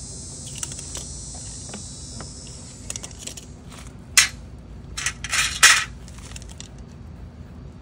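Hard clicks and clatter from handling a black plastic license plate frame and small metal screws, with a sharp clack about four seconds in and a short burst of rattling around five to six seconds in.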